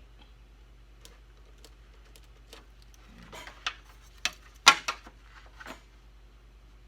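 A few clicks and knocks of a wooden baseboard being handled and set straight against a miter saw, with the saw switched off. The knocks are clustered past the middle, and the loudest comes a little before five seconds in.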